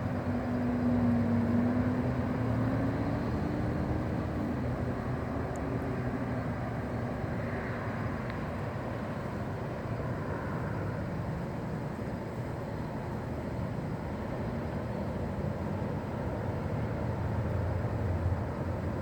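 Honey bee swarm buzzing in a steady drone, with a louder buzzing tone over the first four seconds or so.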